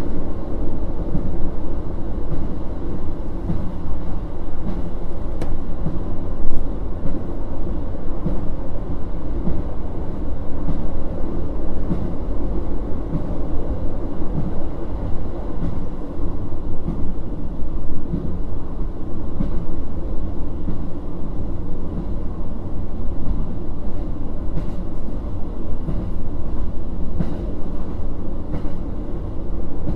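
KiHa 40 1700-series diesel railcar running along the line, heard from inside the car: a steady diesel engine drone under the rumble of wheels on rail, with a few scattered clicks.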